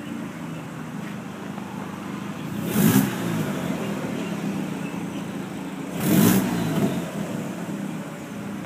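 Volkswagen Jetta making a noise its owner finds strange: a steady engine hum, with two short, louder bursts about three seconds apart that reach high up.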